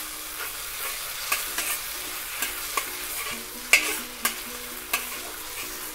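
Onions, garlic and chilli bean paste sizzling in oil in a wok while being stir-fried with a metal spatula. A steady sizzle runs under sharp scrapes and clinks of the spatula against the wok every second or so, the loudest a little under four seconds in.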